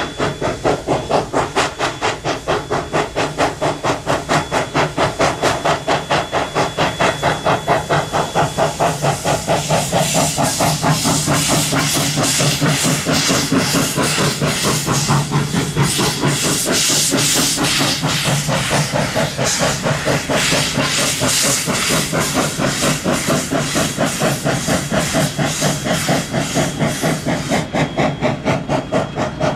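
QR C17-class 4-8-0 steam locomotive C17 974 working a passenger train, its exhaust beating in a fast, even rhythm over a constant hiss of steam. The hiss swells louder and brighter through the middle of the passage.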